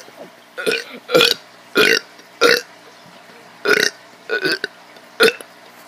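A child burping over and over: a quick run of about seven short, loud burps with brief pauses between them.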